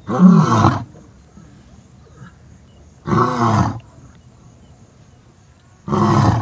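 Adult male lion roaring: three loud, deep calls of under a second each, about three seconds apart, each rising and falling in pitch. A display of power and dominance over the pride's young males.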